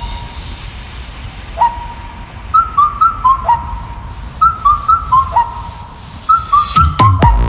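A whistle-like synth melody in background electronic music, repeating a short phrase about every two seconds: an upward swoop into a held note, then a quick run of short notes. The full beat with bass comes in near the end.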